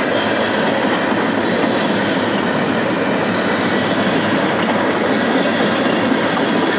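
Freight train tank cars rolling past close by: a steady, even noise of steel wheels running on the rails.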